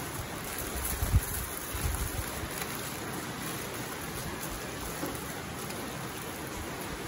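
Aluminium foil crinkling and rustling as it is wrapped and rolled around a meat roll, with a low thump about a second in.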